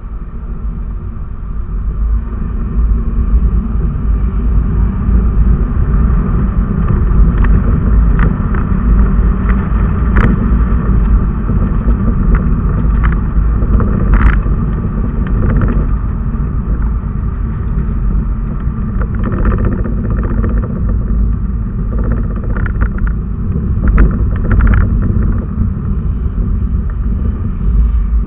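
Low, steady rumble of a car's engine and tyres heard from inside the cabin while driving in slow traffic, building over the first couple of seconds, with a few short clicks or rattles.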